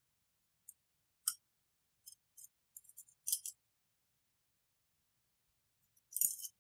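Steel coil spring of a pistol magazine jingling and clinking against the magazine body as it is handled for reinsertion: a string of short, high metallic clinks through the first three and a half seconds, then a brief cluster near the end.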